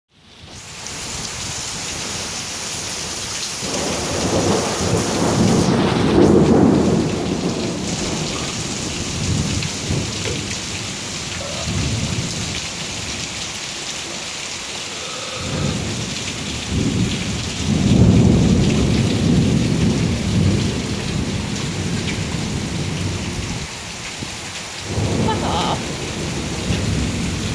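Steady rain with thunder: several long, low rolling rumbles that swell up and die away, the first about four seconds in and a bigger one around sixteen seconds in.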